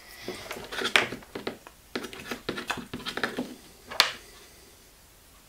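Light clicks and knocks of a 3D-printed plastic blade guide part being handled and fitted with its metal parts, with sharper clicks about a second in and about four seconds in.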